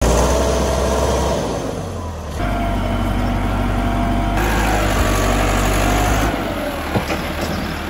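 Massey Ferguson 385 tractor's four-cylinder diesel engine running under load as it pulls a tine cultivator through the soil. The sound changes abruptly about three times, as from one take to the next.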